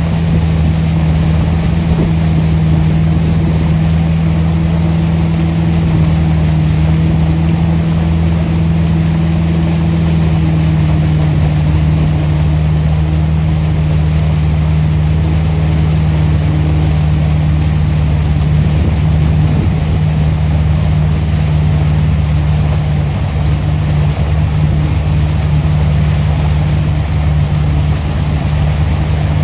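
HeyDay wakesurf tow boat's engine running at a steady towing speed, a continuous low drone over the wash of the boat's wake.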